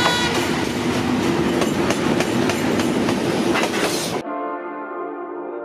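Yangon Circular Railway train running, wheels clattering over the rail joints in a series of sharp clicks. About four seconds in the train sound cuts off suddenly and a sustained musical chord takes over.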